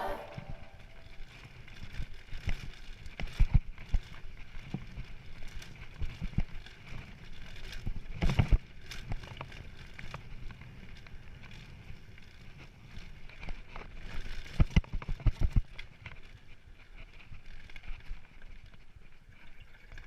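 Mountain bike (Specialized Stumpjumper Evo) riding over rocky trail: steady tyre and wind noise with irregular knocks and rattles from the bike, in loud clusters about a third of the way in, near the middle and three-quarters through.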